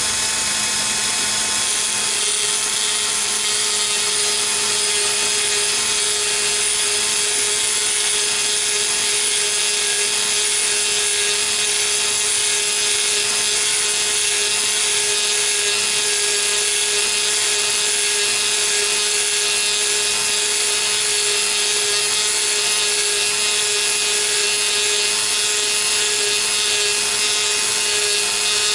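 Dremel flex-shaft tool-post grinder running a 60-grit stone inside the bore of an ER32 collet chuck on a lathe, during a rough grinding pass. A steady high whine with many fixed tones over a hiss, with one stronger, lower-pitched tone coming in a second or two in.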